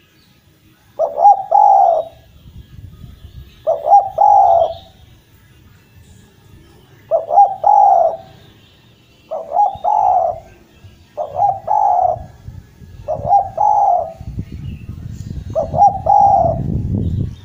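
Spotted dove (derkuku) cooing: seven short, repeated coo phrases, each about a second long, spaced two to three seconds apart. A low rumble sits under the last call.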